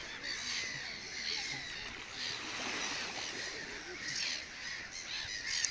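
Many birds calling at once: a busy chatter of short, overlapping high calls.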